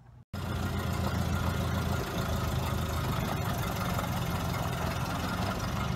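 Vintage Ford truck's four-cylinder engine running steadily at low speed as the truck pulls slowly away, cutting in suddenly a moment in.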